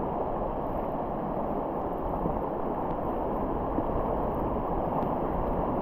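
Steady rush of river current and riffle water around a kayak, growing a little louder toward the end.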